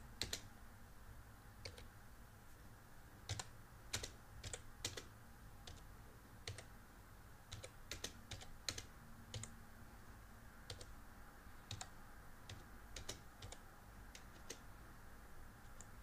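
Faint, irregular keystrokes on a computer keyboard as numbers are typed in, single presses and short runs with pauses between, over a low background hum.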